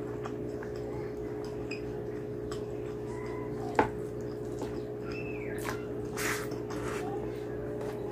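Close-up hand-eating sounds: wet chewing with the mouth closed and fingers squishing saucy rice and curry on a plastic tray, with small clicks and one sharp click a little before the middle. A steady low hum runs underneath.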